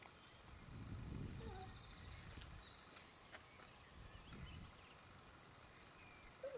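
Quiet outdoor ambience: faint small-bird chirps and trills in the first half, with a low rumble twice.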